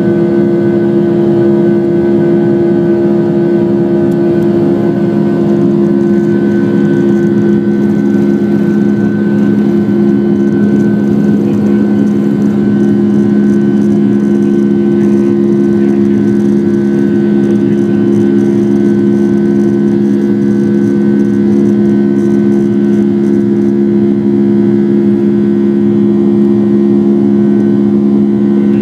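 Boeing 757-200's jet engines at takeoff thrust, heard inside the cabin: a loud, steady drone with two strong low hum tones as the airliner lifts off and climbs.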